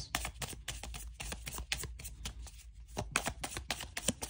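A tarot deck being shuffled by hand: a quick, irregular run of soft card clicks and flicks.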